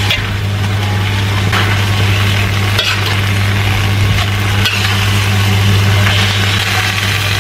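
Water spinach sizzling as it is stir-fried in an aluminium wok, tossed with a metal spatula that scrapes against the pan a few times. A steady low hum runs underneath.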